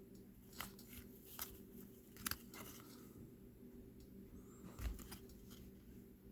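Trading cards being handled and flipped through: a few faint, sharp snaps and rustles of card stock, over a low steady hum.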